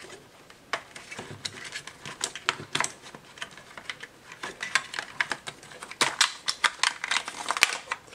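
Irregular clicks and taps of hard plastic being handled by hand: a Yamaha MT-07's factory plastic rear fender, turn signal and wiring being worked apart, the clicks coming faster near the end.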